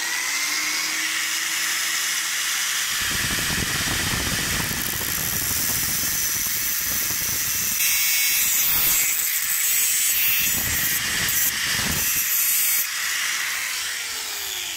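Angle grinder with a thin cut-off disc running and cutting through a metal roller bracket. It starts up at the beginning and runs steadily, turns harsher and brighter while the disc bites into the metal, then winds down near the end.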